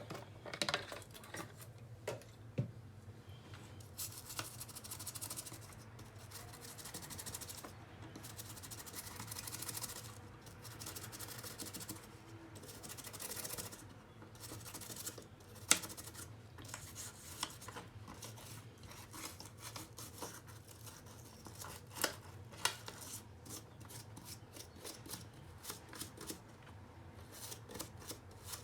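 Scrubbing and scraping on a laptop part being cleaned, in irregular rubbing strokes with a few sharp clicks and taps. The loudest click comes just past halfway.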